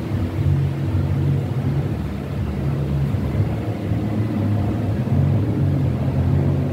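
A continuous low rumble that swells and eases every second or two.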